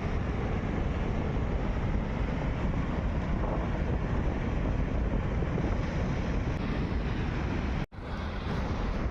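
A flash-flooded mountain creek rushing past in a steady, heavy torrent, with wind rumbling on the microphone. The sound cuts out for an instant near the end, then resumes.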